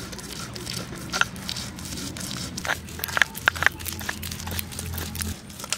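Stone muller scraping and crushing wet jackfruit seed paste on a flat grinding stone (sil-batta), with sharp clicks of stone on stone around the middle. A low steady hum underneath stops near the end.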